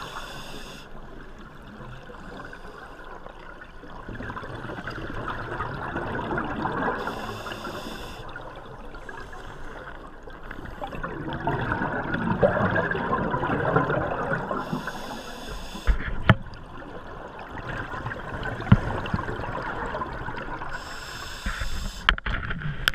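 Scuba breathing heard underwater: a regulator's short hiss on each breath and two long surging rushes of exhaled bubbles. A few sharp knocks come in the second half.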